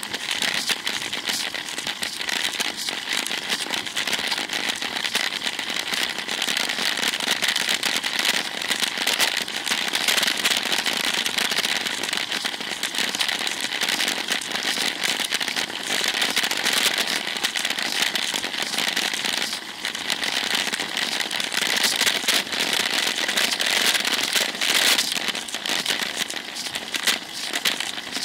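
Steady dense crackling and rattling picked up by a bicycle-mounted camera's microphone while the road bike rolls along asphalt, the noise of road vibration and wind at the mount, easing briefly about two-thirds of the way through.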